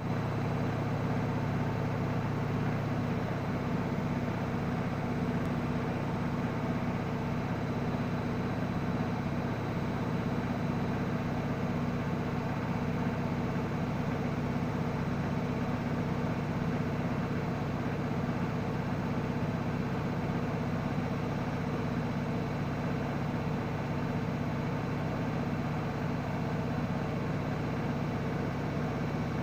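Washing machine running with a steady low hum.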